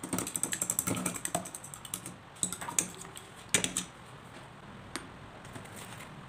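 Metal fork beating a raw egg in a ceramic bowl, the tines clicking quickly against the bowl for about two seconds, then a few slower clinks, the loudest about three and a half seconds in.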